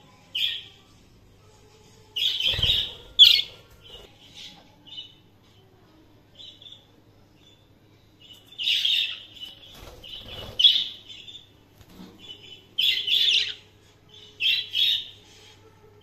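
Budgerigars chirping in short, high clusters of quick chirps separated by pauses of a few seconds.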